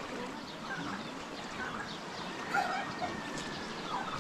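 Scattered short, high animal calls over a steady background, with a faint held tone in the second half.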